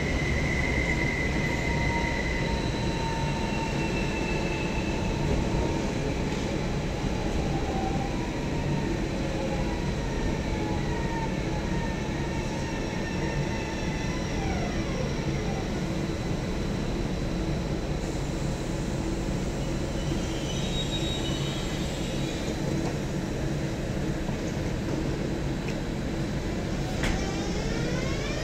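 Electric passenger trains moving through a station: a steady rumble of wheels on rails, with the whine of traction motors. The whine falls in pitch midway as a train slows, and climbs sharply near the end as a train accelerates away.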